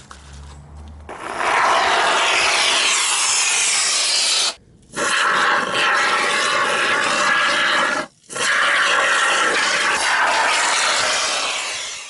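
Can of Everbuild Fix & Fill expanding foam spraying through its straw nozzle: a loud, steady hiss in three long stretches, with short pauses about four and a half and eight seconds in.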